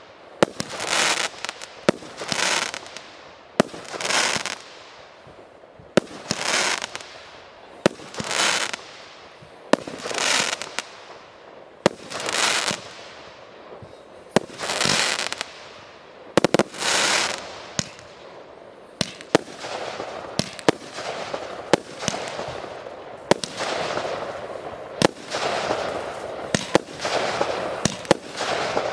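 Fireworks display: sharp bangs about every two seconds, each followed by about a second of hissing crackle. About two-thirds of the way through the bangs come faster and the crackling runs on almost without a break.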